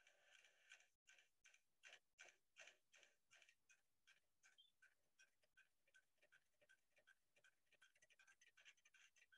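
Faint ticking of many small pendulum metronomes being set going one after another. The ticks start a few to the second and grow denser as more metronomes join.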